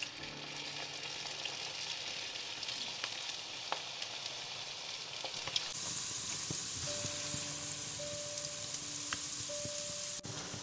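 Chicken wontons deep-frying in hot oil, a steady sizzle that grows brighter and louder a little past halfway.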